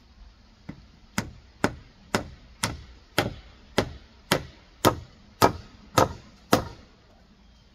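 Claw hammer nailing into a rough-sawn slab board: one light tap, then about eleven sharp strikes roughly two a second, each louder than the last.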